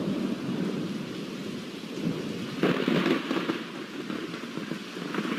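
Thunderstorm: steady rain with thunder swelling louder about two and a half seconds in.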